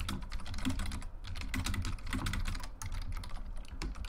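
Typing on a computer keyboard: a rapid, irregular run of keystroke clicks.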